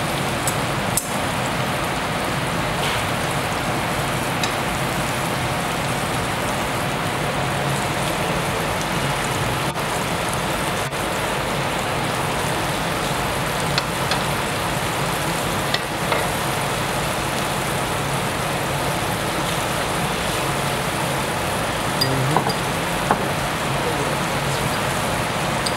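Kimchi, bean sprouts and meat sizzling steadily on a hot tabletop barbecue griddle over a portable gas burner. A few sharp clinks of metal tongs come through.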